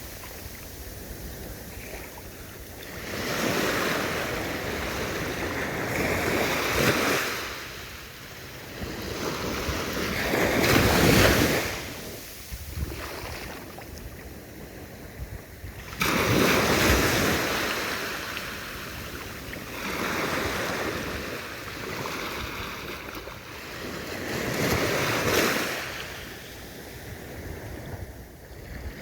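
Ocean waves breaking and washing up the shore, swelling and falling away in about four surges, one of them coming in suddenly about halfway through.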